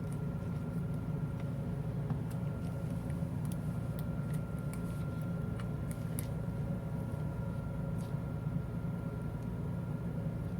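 Steady low machinery hum carrying two faint steady tones, with light, scattered clicks of small metal parts as a limit switch's cam assembly is taken apart by hand.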